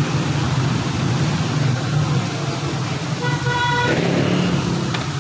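A car engine running with a steady low hum, and a short car-horn toot a little over three seconds in, lasting under a second.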